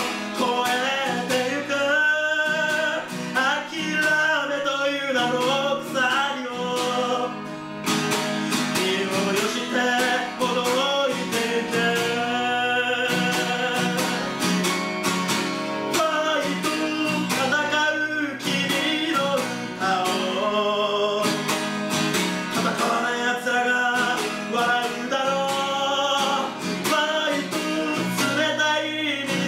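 A man singing a Japanese song live, accompanying himself on an acoustic guitar.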